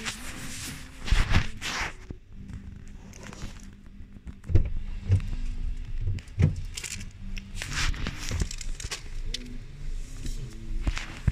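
Low, steady rumble of a car interior while driving, overlaid with irregular rubbing and knocks from a phone being handled close to the microphone against skin and hair.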